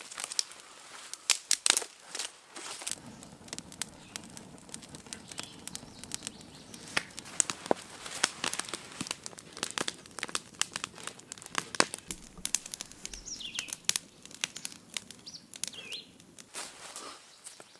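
Close crinkling and rustling with many irregular sharp crackles, and a few short bird chirps about thirteen and sixteen seconds in.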